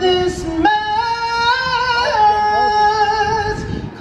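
A woman singing long held notes into a microphone through a PA speaker, with a live band playing behind her.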